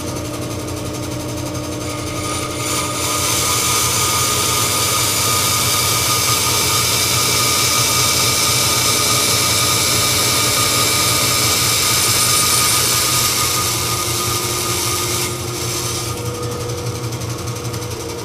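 Vertical bandsaw running with a steady motor hum while a brass bar is fed into the blade. The cutting hiss swells about two seconds in, holds, and drops back about fifteen seconds in as the blade cuts through, leaving the saw running free.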